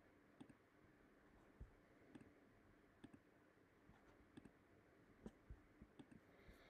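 Faint computer mouse clicks, a dozen or so at irregular intervals, some in quick pairs, over near-silent room tone.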